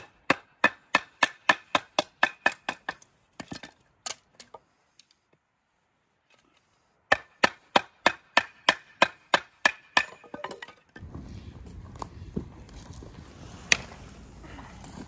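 Firewood being chopped with a blade: two runs of about a dozen quick strikes each, about four a second, each with a short metallic ring, split by a pause. A few scattered knocks follow near the end.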